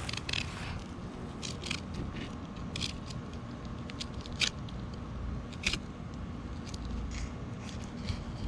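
Fillet knife slicing and scraping through kingfish flesh as the fillet is lifted off the frame: a string of short, irregular cutting sounds over a steady low hum.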